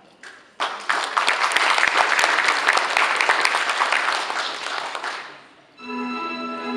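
Audience applauding for about five seconds, then fading away. Near the end, Viennese waltz music starts over the speakers with sustained notes.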